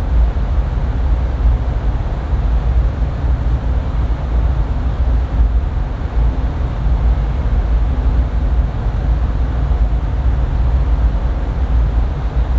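Steady low rumbling noise, loudest in the deep bass and flickering in level, with no distinct events.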